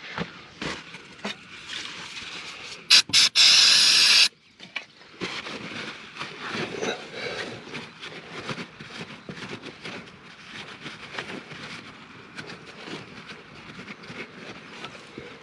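Light clicks and handling noises, then about three seconds in two short sharp hisses followed by a loud, steady hiss lasting about a second, which stops abruptly; irregular light clicking and rattling follow.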